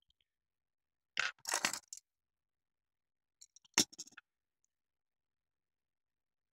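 Handling noises from a small plastic N-gauge railcar body and tweezers: a brief scraping rustle about a second in, then one sharp click a little later.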